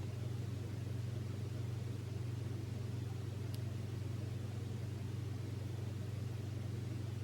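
A steady low mechanical hum that does not change, with one faint click about three and a half seconds in.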